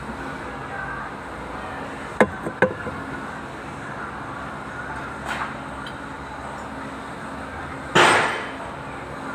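Metal-on-metal knocks and clinks from tools: two sharp clinks a little after two seconds, a faint tap near five seconds, and a louder hit about eight seconds in that fades over most of a second, over a steady low hum.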